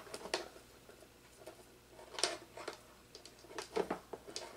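Hands handling and twisting insulated control wires together, making a few faint, short rustles and scrapes, the strongest about two seconds in.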